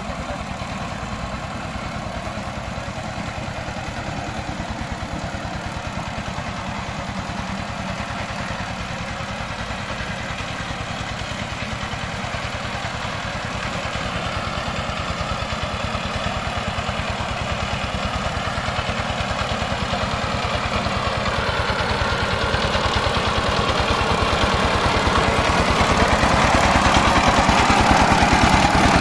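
The diesel engine of a two-wheel Chang Tuo power tiller running steadily with a fast, even chug as the tiller works the soil. It grows louder over the second half as the machine comes close.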